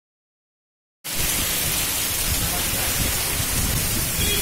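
Silence for about the first second, then heavy monsoon rain falling steadily on a waterlogged road, with a deep rumble underneath.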